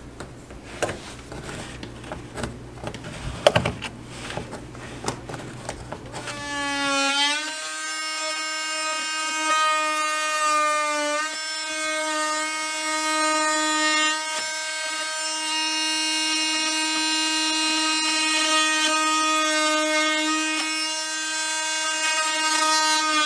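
A few light knocks and handling sounds, then about seven seconds in a cordless oscillating multi-tool starts up with a rising whine and runs at a steady high buzz, its blade cutting a notch out of baseboard molding.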